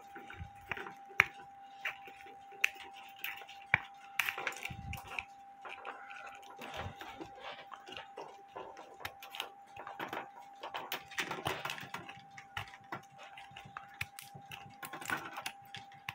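Hand snips cutting and nibbling the end of a steel clock mainspring: irregular sharp clicks and snaps, with metal clinking, over a faint steady tone.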